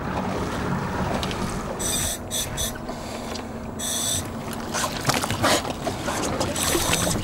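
Sounds on a small open fishing boat: water sloshing against the hull and wind on the microphone, with several short hissy splashes and a few knocks and splashes about five seconds in as a hooked Humboldt squid is pulled up at the side.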